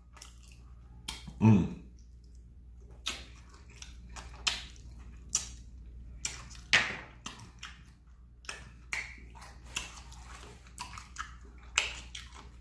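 Close-up eating sounds of a man working through a fried chicken wing: repeated wet lip smacks and chewing clicks. A brief low voiced hum about a second and a half in is the loudest sound.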